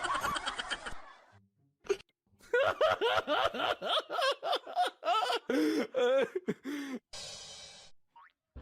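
A person laughing in a run of short rising-and-falling bursts, three or four a second, after music fades out at the start and a single click.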